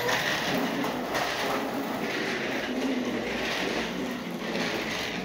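A child's small bicycle with training wheels rolling fast over a ceramic tile floor. The wheels make a steady rattling rumble that swells and eases every second or so as the bike circles.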